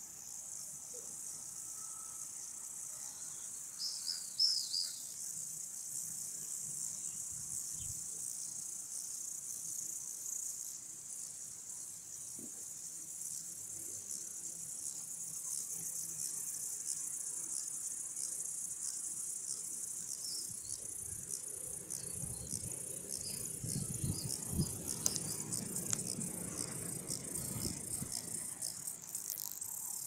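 Meadow insects chirring steadily at a high pitch, with a short higher chirp about four seconds in. A low rumble joins in during the last third.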